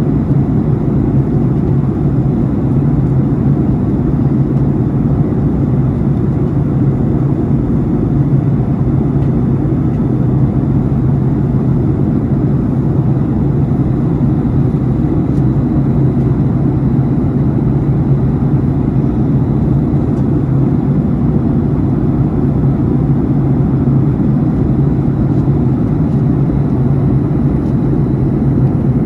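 Steady, loud drone of a jet airliner's cabin in flight: engine and airflow noise with a constant low hum.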